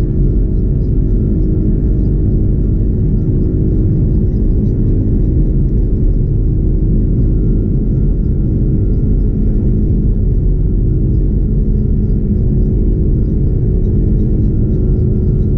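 Airbus A330 taxiing, heard inside the cabin: a steady low rumble from the engines at taxi power and the rolling gear, with a few steady hum tones over it.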